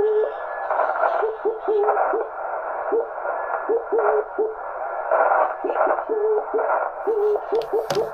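Morse code from a home-built single-valve 4 W CW transmitter, received over the air on a ham radio: a keyed tone of dots and dashes over steady band hiss. Each element starts with a brief pitch slide, the chirp typical of a simple valve transmitter whose frequency shifts as it is keyed. A sharp click sounds near the end.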